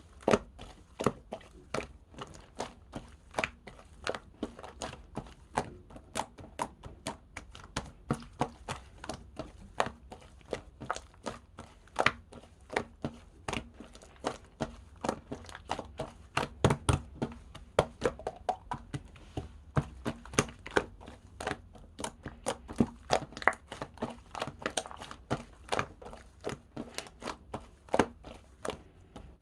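Slime being pressed, stretched and poked by hand, giving a stream of irregular sticky clicks and small pops, several a second.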